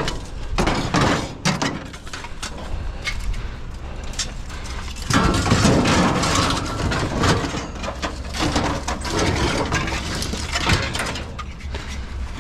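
Parts being pulled out of a heavy metal barbecue: irregular clanks, knocks and rattles of metal pieces being handled and set down, busiest and loudest about five seconds in.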